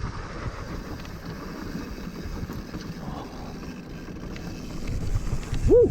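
Mountain bike rolling down a dry dirt trail: steady tyre rumble and rattle with wind on the microphone. Near the end comes a short squeal that rises and falls in pitch.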